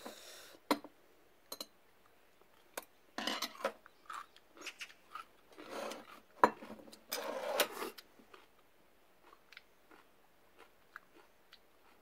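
A person eating at the table: chewing, and drinking from a bowl lifted off its saucer, with scattered light clicks of utensils and dishes.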